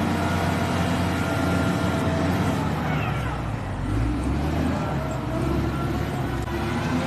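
Motor vehicle engine running steadily, a low continuous drone.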